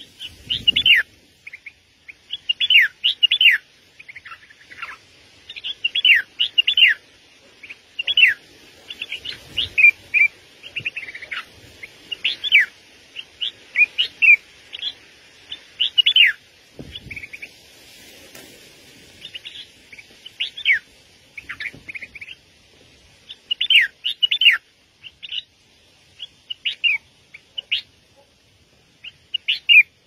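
A small songbird calling over and over: short, sharp chirps that mostly sweep downward, in quick clusters every second or two. A few dull low thumps come through near the start, about ten seconds in and about seventeen seconds in.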